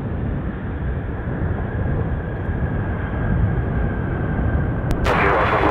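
Jet airliner on approach to land: a low engine rumble with a faint steady whine, growing louder over the first few seconds. A loud burst of hiss starts near the end.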